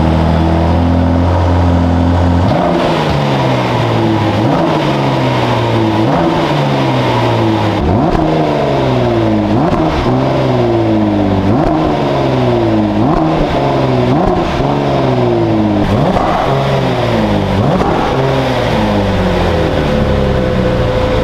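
Ford GT Heritage Edition's 3.5-litre twin-turbo EcoBoost V6 idling steadily, then free-revved over and over: about a dozen blips, each rising sharply and falling away slowly.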